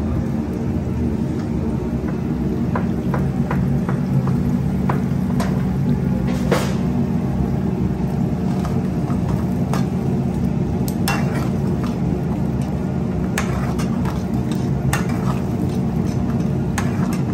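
Metal spoon stirring, scraping and clicking now and then against a steel frying pan of simmering onion and tomato masala, over a steady low rumble from the gas range.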